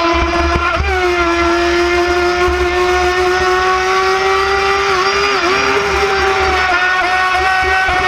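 WLtoys Arrow RC speedboat's electric motor whining at a steady high pitch as the boat runs fast, with water spray hissing off the hull. The pitch dips and wavers briefly about five seconds in.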